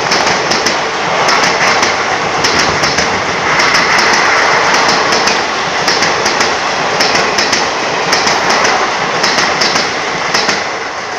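Indian Railways blue sleeper-class passenger coaches passing close by at speed: a loud steady rush of wheels on rail, with clusters of clacks every second or two as wheel sets run over the track. It fades away near the end as the last coach goes by.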